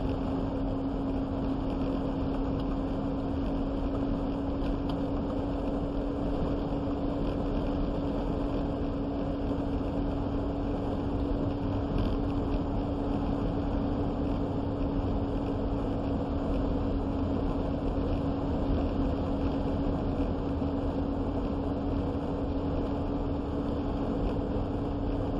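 Steady engine and road noise inside a vehicle cab while driving at an even speed, with a constant low hum.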